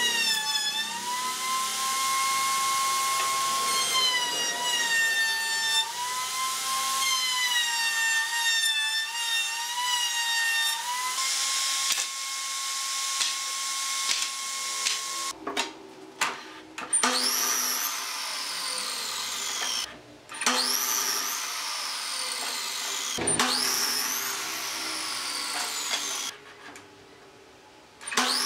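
A table-mounted circular saw running and ripping pine strips, its motor whine dipping in pitch as each board is fed through. About halfway it stops, and a sliding miter saw makes three cuts, each a quick rising whine that falls away slowly as the blade winds down.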